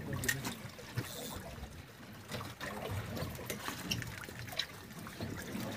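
Water trickling and sloshing aboard a fishing boat at sea, with scattered light clicks and knocks.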